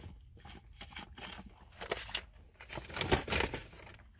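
A man drinking from a paper fountain-drink cup: quiet sips and cup handling, with a louder noisy burst about three seconds in.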